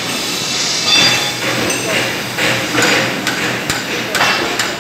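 Magnetic drilling machine running under load, with a steady hum and hiss. Several sharp metallic knocks come in the second half.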